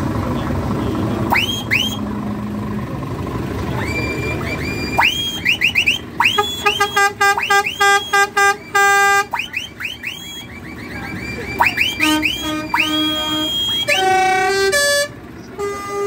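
Show lorries' horns sounding: a run of rising, whistle-like glides, then rapid strings of short toots. Later the toots come at a few different pitches, like a musical horn playing a tune.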